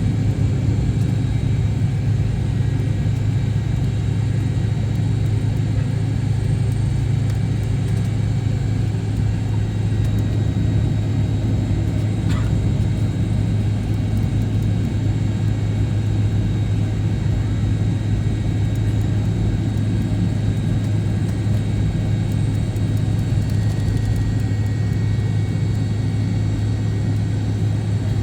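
Cabin noise of an MD-88 airliner: the rear-mounted jet engines running steadily as a low, even drone with a faint high whine above it. A single faint click about twelve seconds in.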